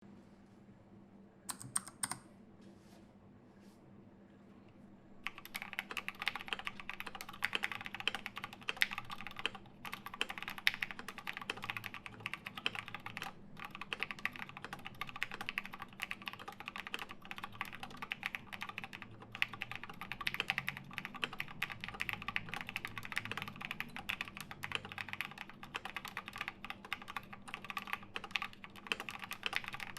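MC-76k "Fatboy" mechanical keyboard with lubed Gateron Black KS-3 linear switches, aluminium plate and MT3 keycaps being typed on. A few single keystrokes come about a second and a half in, then from about five seconds in there is steady, fast typing with dense, even key clicks.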